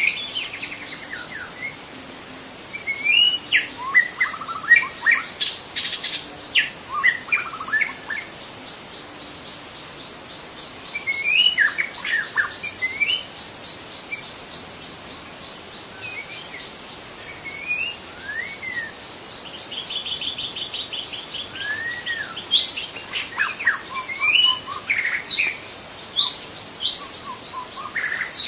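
White-rumped shama singing in short, varied whistled phrases, in bursts with pauses between them, over a steady high-pitched insect drone.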